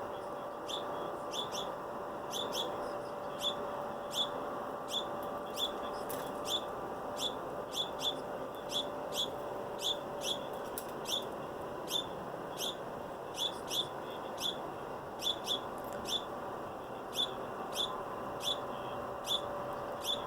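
Small bird giving short, sharp chirps over and over, about two a second at uneven intervals, over a steady background hum.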